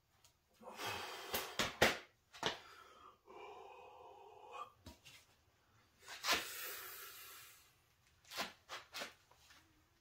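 Forceful breaths and two long hard exhales from a lifter bracing for a one-hand pinch lift of two 50 lb pancake plates, with a few light knocks as his hand sets the grip on the iron plates.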